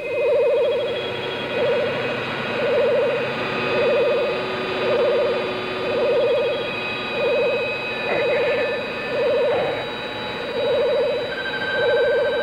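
Electronic sci-fi soundscape: a low throbbing tone that pulses about once a second, over steady high electronic drones, with a brief rising warble about two-thirds of the way through.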